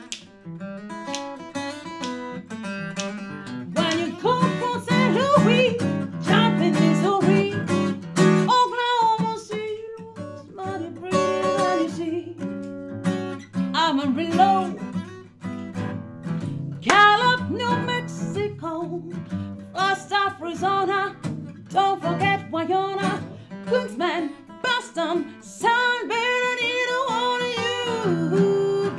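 A woman singing live, accompanied by an acoustic guitar. The guitar plays alone for the first few seconds before her voice comes in.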